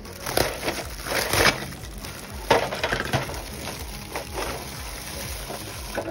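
Clear plastic packaging bag crinkling and rustling in irregular bursts as it is handled and pulled away from a plastic mandoline slicer.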